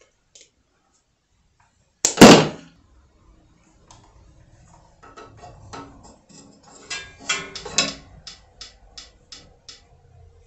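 Wire cutters snipping through an electric power cord: one sharp snip about two seconds in, the loudest sound. Then light clicks and rustles from handling the cut cord and its wires, ending in a quick run of ticks about three a second.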